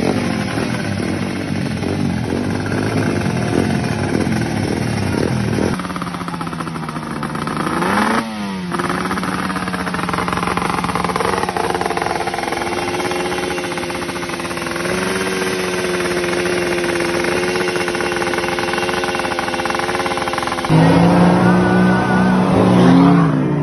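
A small motorcycle engine running and being revved, with one quick rev up and back down about eight seconds in. Near the end a louder engine takes over, that of a pickup truck, running and then revving.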